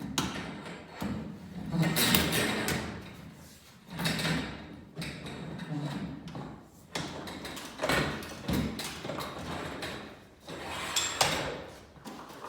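Intermittent scraping and knocking of a garage door torsion spring and bearing being slid along the torsion tube, with a few sharp clunks.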